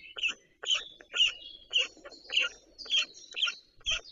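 A bird calling over and over, short chirping notes about twice a second.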